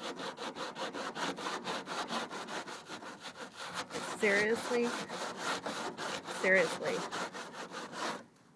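Sponge scrubbing rapidly back and forth over the ribbed truck bed, about five strokes a second, working dried paint off with cleaner. The scrubbing stops just before the end.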